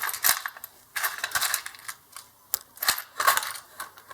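Small metal springs clinking and rattling in bunches as they are picked through in a drawer, with a few sharp single clicks.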